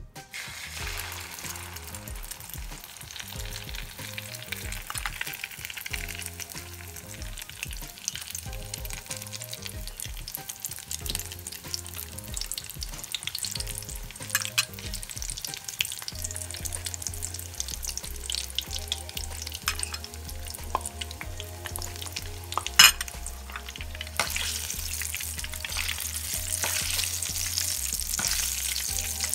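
Egg-dipped eggplant (tortang talong) frying in hot oil in a pan: a steady sizzle with spattering crackles that grows louder about five seconds before the end, and one sharp click about three-quarters of the way through.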